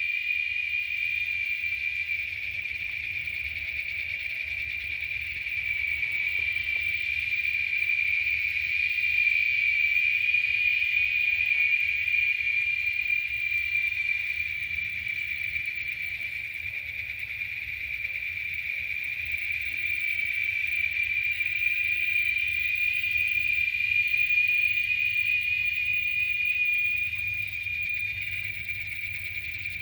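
A steady chorus of insects trilling continuously at one high pitch, slowly swelling and easing in loudness, over a faint low rumble.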